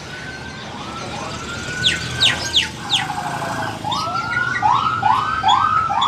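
Caged songbird whistling. A few sharp high downward notes come about two seconds in, then a long, slowly falling whistle, then a run of short rising whistles repeating about three times a second.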